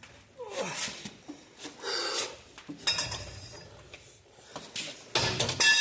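Steel tools and parts clinking and clanking against each other in several separate knocks, the loudest near the end ringing with a high metallic tone.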